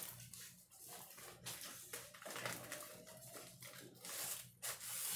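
Irregular rustling and handling noises in short, uneven bursts over a faint steady hum.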